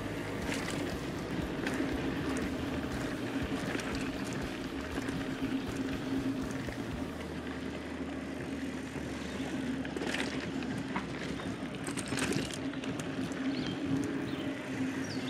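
Mountain bike rolling fast along a packed-dirt forest trail: steady tyre noise with a constant hum, and the bike clattering over bumps, with sharper rattles about ten and twelve seconds in.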